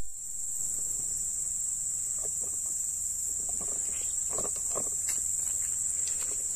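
Steady high-pitched insect chorus drones without a break, with a few faint short knocks in the middle.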